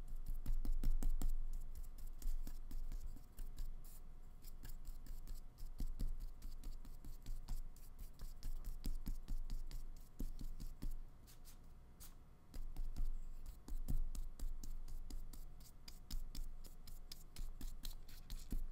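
Flat paintbrush with a nearly empty load of acrylic scrubbing and dabbing across taped paper: an irregular run of dry, scratchy strokes.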